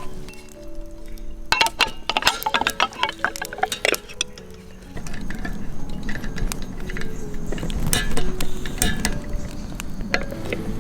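Several quick clinks of hard objects knocking together. About five seconds in, a steady sizzling crackle starts, like food frying or a fire, over soft background music.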